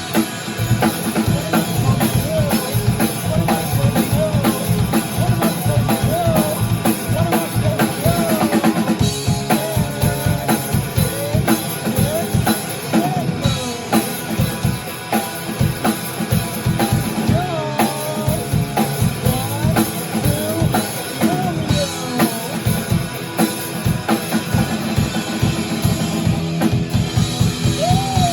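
A rock band playing: a drum kit keeping a fast, busy beat under electric guitar and bass.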